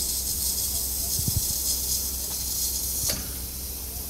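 Steam locomotive 01 519 standing at the platform, steam hissing steadily from it over a low rumble. There is a short knock about a second in and a click about three seconds in.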